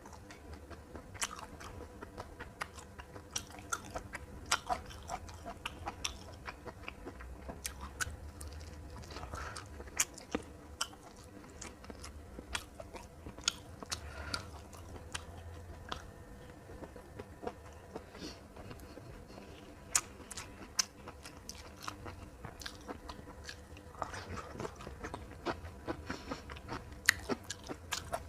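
A person chewing and crunching a meal of fried fish, green beans and rice close to the microphone, with many short, sharp crunches and clicks throughout.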